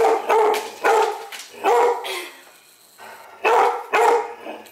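A dog barking repeatedly in short bursts, with a pause of about a second midway.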